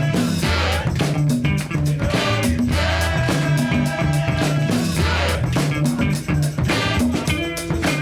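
Background music: an upbeat funk-rock track with guitar, bass and a steady drum beat.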